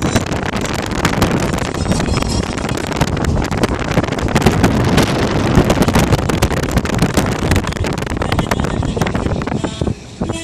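Wind buffeting the microphone over the steady rumble of a moving vehicle, with constant crackle, dropping away briefly near the end.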